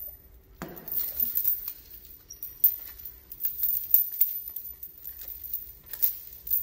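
Steel load-securement chain clinking and rattling as it is handled and folded in gloved hands, with scattered irregular clicks of links knocking together.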